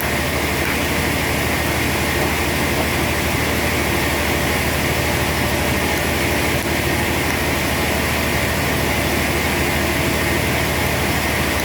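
Sawmill machinery running steadily: a constant mechanical drone with a low hum, unchanging throughout.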